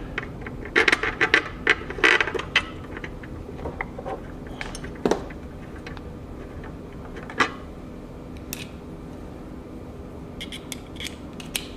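Scattered small clicks and taps of a screwdriver and screw at a sewing machine's plastic end cap, as the screw is set and driven in. There is a quick run of clicks about a second in and a few single taps later.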